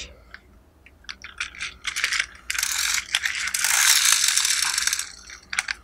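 Plastic toy motorbike's wheel gearing ratcheting as it is handled: scattered clicks at first, then a fast, dense clicking rattle for about two and a half seconds as the wheels are spun.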